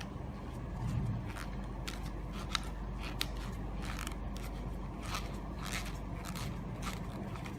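Screwdriver scraping and picking at the glue on the plastic housing of a vehicle alarm: a run of small, irregular clicks and scrapes.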